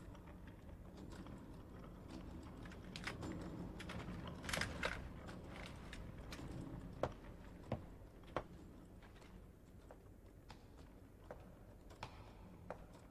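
Soft rustling of bedclothes as someone gets up, then a slow run of light footsteps, one about every 0.7 seconds, over a low room hum.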